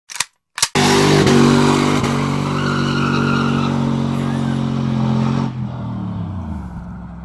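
Stock GMC Sierra 5.3 L V8 with long-tube headers, a catless Y-pipe and a 4-inch tip, its exhaust cutting in suddenly at high revs and held there for several seconds. The pitch then falls as the revs drop off near the end.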